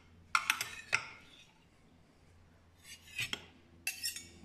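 Metal serving spoon and slotted spatula clinking and scraping against a glass baking dish and a ceramic plate while a portion of fish and tomatoes is served: a few clusters of light clinks, near the start and again about three and four seconds in.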